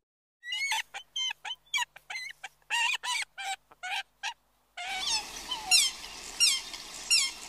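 A string of short, high animal calls, each dropping in pitch, then about five seconds in a different recording with a hiss behind it and evenly spaced falling chirps, roughly one every 0.7 s.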